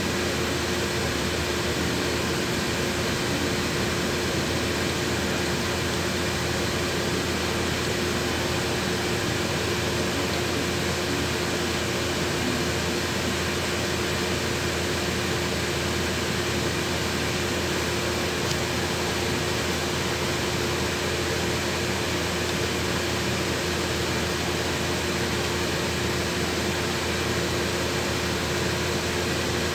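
Steady cabin noise inside a LiAZ 6213.21 articulated city bus standing in traffic: the engine running, with a constant even whine over a steady hiss.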